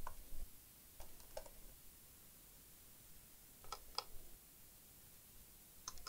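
A handful of faint, scattered clicks and light taps from a laptop being handled on a repair bench, some coming in quick pairs.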